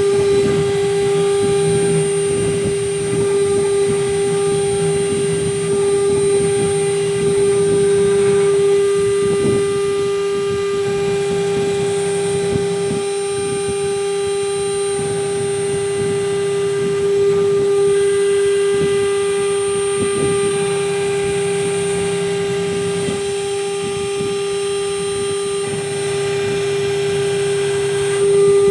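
AKM1212 CNC router running: its spindle gives a steady high whine, with a lower hum that comes and goes and some rattling as the machine works.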